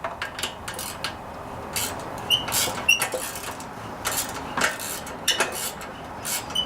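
Irregular metallic clicks and clinks of a 5/16 socket wrench working the rust-seized bolts of a Briggs and Stratton Intek engine's air filter housing, some clinks ringing briefly.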